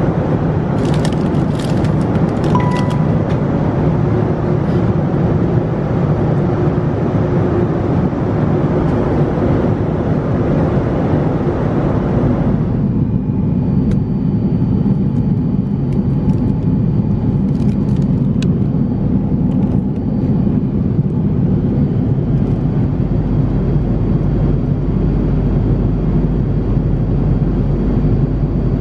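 Steady cabin noise of an Airbus A340-600 airliner in cruise: a constant low rumble with a rush of air. A few light clicks and a short high beep come in the first three seconds, and about twelve seconds in the hiss turns duller.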